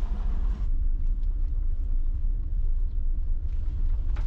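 Low steady rumble of a vehicle driving on the road, towing a trailer loaded with boats.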